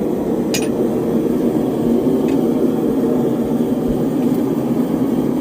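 Steady noise of a blacksmith's forge running, with one sharp strike of metal on metal about half a second in and a fainter tap a little after two seconds.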